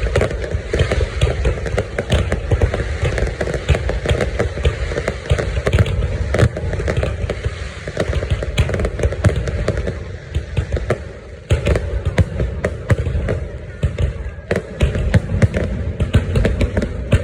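Fireworks going off, many bangs and pops crowding together with hardly a break, and a brief lull about eleven seconds in.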